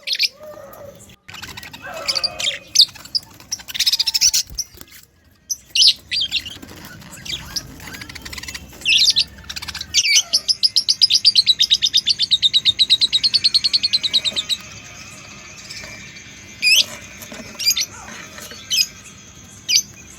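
Budgerigars chirping, with short high calls scattered through and a fast run of rapidly repeated chirps lasting about four seconds around the middle.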